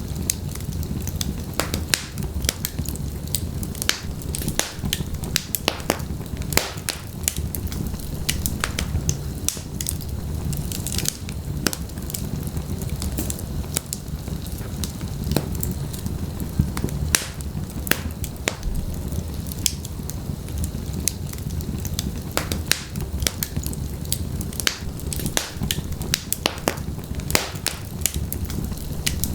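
Wood fire burning in a fireplace: a steady low rumble of the flames with frequent sharp crackles and pops, several a second.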